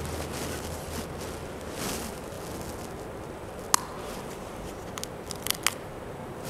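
Quiet church room tone with a faint low hum that fades out in the first couple of seconds, then a single sharp click a little past halfway and a cluster of clicks and knocks after about five seconds.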